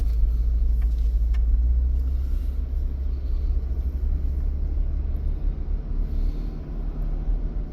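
Steady low rumble of a car driving, heard from inside the cabin, easing slightly after about six seconds.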